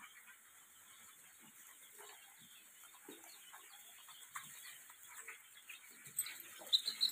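A flock of seven-day-old Sonali chicks cheeping softly: a faint, continuous chorus of short peeps, with a few louder cheeps near the end.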